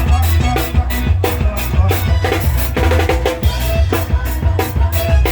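Live band playing an instrumental passage: a drum kit keeps a steady driving beat of bass drum and snare over a strong bass line, with no singing.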